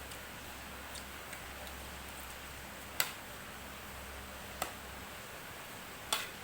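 Tableware knocking during a meal: four isolated sharp clicks, one to two seconds apart, over a low steady hum.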